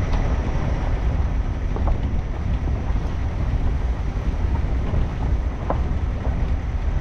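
Open-top safari jeep driving along a dirt track: a steady low rumble of engine, tyres and wind.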